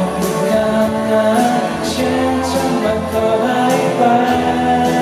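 A man singing a slow pop song into a microphone over instrumental backing, holding long notes.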